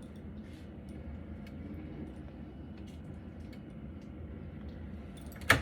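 Scattered light clicks and taps over a low steady hum, then one sharp, loud click about five and a half seconds in.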